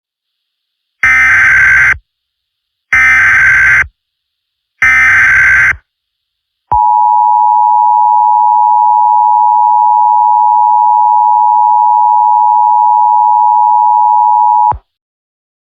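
Emergency Alert System broadcast tones: three buzzy bursts of digital header data, about a second each, then a steady two-pitch attention tone held for about eight seconds, which cuts off suddenly. The attention tone signals that an emergency message follows.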